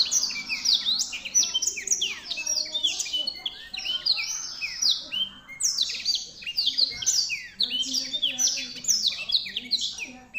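Black-throated canary (blackthroat) singing constantly in a long, unbroken song of rapid, high, down-slurred chirps and trills, pausing only briefly midway.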